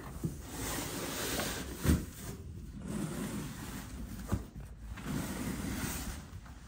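Heavy cardboard chainsaw box being turned over on a wooden floor: cardboard and plastic wrap scraping and rustling, with a dull thump about two seconds in and a lighter knock a little past the middle.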